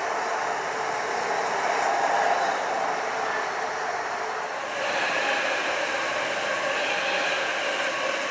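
Wagons of an intermodal container freight train rolling past on the rails. About five seconds in this gives way to a Royal Mail Class 325 electric postal train running by, the sound shifting higher in pitch.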